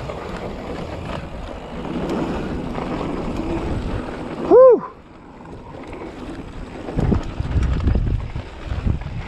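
Wind buffeting the microphone and a rough rumble from a mountain bike riding a dirt trail; the rumble grows choppier in the last couple of seconds. About halfway through comes a short, loud pitched squeal that rises and falls.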